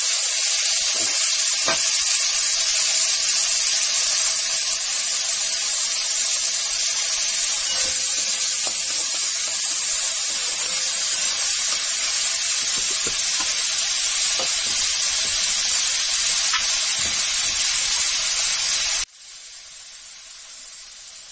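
Chopped onion, garlic, ginger and green chillies sizzling loudly in hot oil in a kadai, a steady hiss that drops abruptly to a much quieter sizzle near the end.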